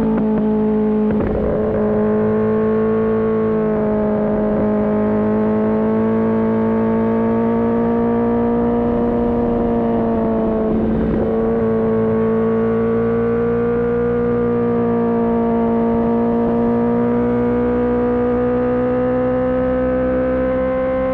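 Kawasaki ZX-10R inline-four engine running at steady high revs while riding, its pitch dipping briefly about a second in and again about eleven seconds in, then rising slowly near the end.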